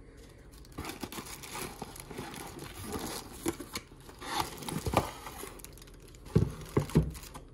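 Cardboard box flaps and a plastic bag rustling and crinkling as a bagged cordless die grinder is pulled out of its box. A few knocks in the second half as the tool and box bump about.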